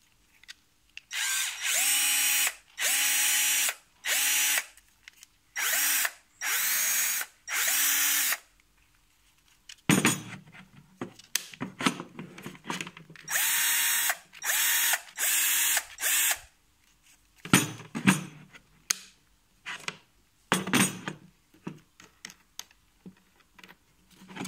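Metabo PowerMaxx BS Basic cordless drill-driver run in short trigger bursts: seven spin-ups in quick succession, each rising briefly then holding a steady whine for about a second. A run of clicks follows as the chuck and collar are handled, then three more short bursts, then scattered clicks and ratcheting near the end.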